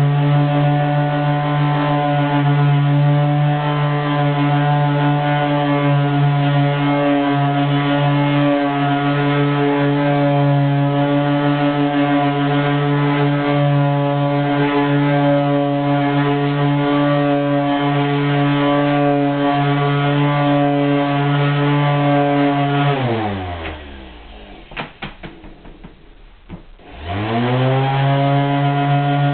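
Electric random orbit sander with a soft felt buffing pad running steadily as it polishes oil-finished wooden block pieces. About 23 seconds in it is switched off and winds down, a few light knocks follow, and then it is switched on again and spins back up to speed.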